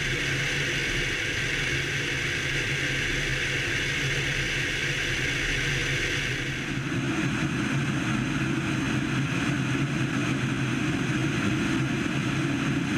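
Piper PA-28-161 Warrior II's four-cylinder Lycoming engine and propeller droning steadily in cruise flight. About halfway through, the sound shifts to a deeper, more rumbling drone.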